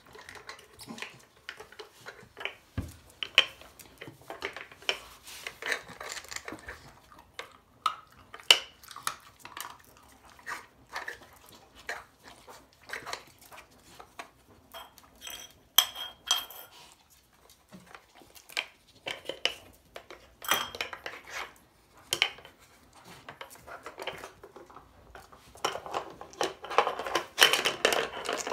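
A Staffordshire bull terrier puppy nosing and pawing at a Trixie Flip&Fun plastic puzzle toy: irregular plastic clicks and clacks as its lids and cones are pushed, lifted and knocked back down. There is a dense flurry of clacking near the end.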